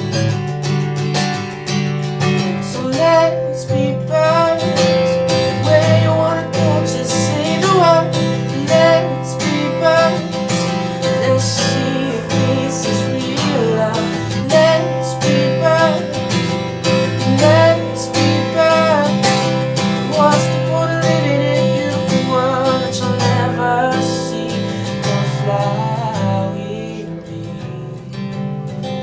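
Live acoustic guitar music: steadily strummed chords with a wavering melody line over them, fading slightly near the end.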